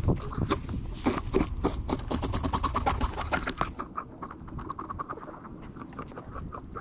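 Knife scraping and tapping over a rudder fish (nenue) on a plastic table as it is cleaned: a fast run of short scrapes for about four seconds, then softer, sparser ones.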